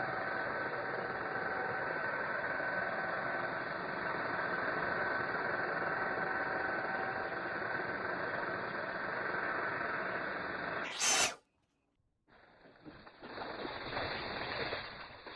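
Sawmill running steadily while milling an old cedar dock pole. About eleven seconds in there is a short sharp burst, then a quieter, rougher stretch of machine noise that fades near the end.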